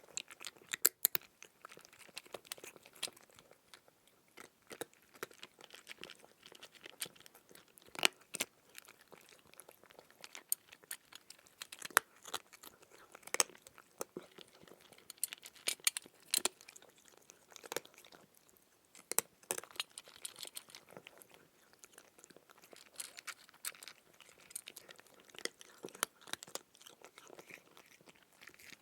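Crunchy chewing: irregular crisp crunches and bites of someone eating crunchy food, with a few louder crunches standing out.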